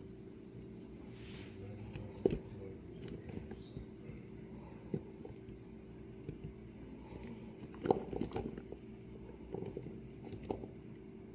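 Scattered light knocks and clicks over a steady low hum, with the sharpest knock about two seconds in and a quick cluster of them around eight seconds in.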